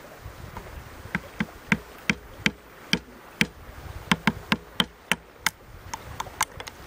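Hatchet blade working a small stick of wood by hand: a run of sharp, irregular wooden clicks and taps, about three a second, from about a second in until near the end.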